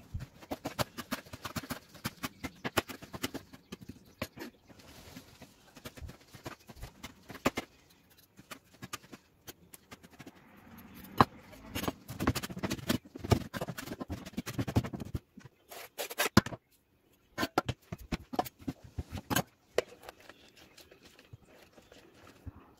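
Kitchen knife chopping fresh parsley on a plastic cutting board: quick, uneven taps of the blade on the board, thinning in the second half to a few separate knocks with pauses between.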